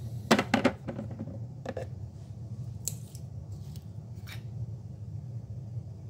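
Short sharp clicks and snips from handling and opening a tube of super glue: a quick cluster in the first second, then single clicks spread over the next few seconds.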